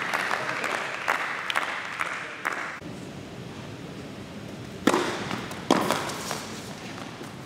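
Scattered clapping and applause from a small crowd, cut off about three seconds in; then a tennis ball struck hard twice, a serve and its return, a little under a second apart.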